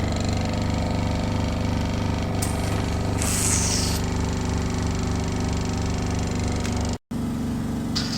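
Hydrafacial machine's hydrodermabrasion suction pump running steadily with a pulsing mechanical hum, and a short burst of suction hiss a few seconds in. The sound cuts out briefly about seven seconds in.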